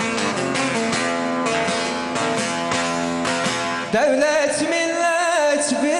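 Bağlama (saz) playing a fast run of strummed and plucked notes in a Turkish folk lament. About four seconds in, a man's voice comes in, louder, with a long wavering sung line over the saz.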